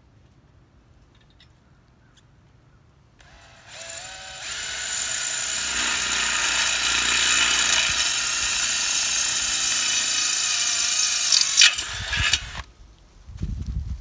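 Cordless drill boring a bolt hole through steel square tubing and its bracket plate: it winds up about three seconds in, runs steadily with a ringing whine for about nine seconds, gives a sharp click near the end, then stops.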